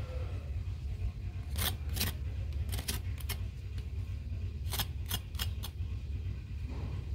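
Crisp fried chicken crust crackling as a piece is squeezed and handled close to the microphone: a string of short, sharp crackles in two clusters, over a steady low rumble.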